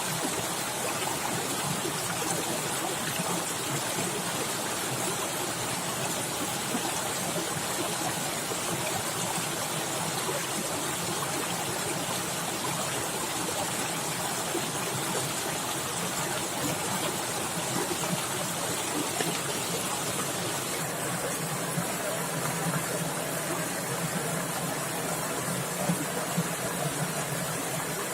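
Fast-flowing forest stream splashing and rushing steadily, with no breaks.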